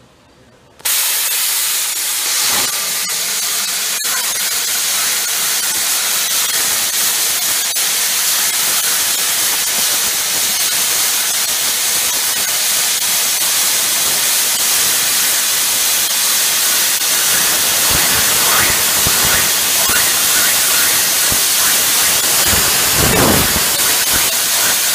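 Hypertherm plasma cutter making a high-amperage drag cut through steel plate: the arc and air jet start abruptly about a second in with a loud, steady hiss that holds as the torch is drawn along the line, cutting right through the plate.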